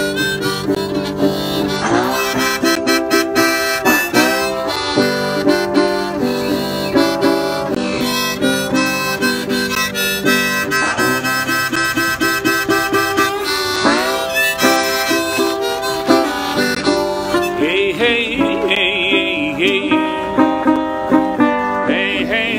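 Harmonica played in a neck rack over a metal-bodied resonator guitar picked with a glass slide, in an improvised instrumental break. The guitar's notes glide between pitches, and near the end the harmonica plays wavering high notes.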